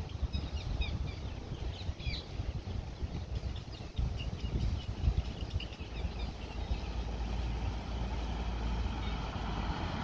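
Wind rumbling on the microphone, with faint, rapid small-bird chirps over it for the first six seconds or so.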